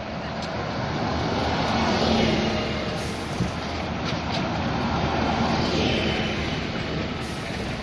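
Double-decker city buses passing close by one after another, their engine and tyre noise swelling as each goes past, about two seconds in and again around six seconds, with a brief knock between them.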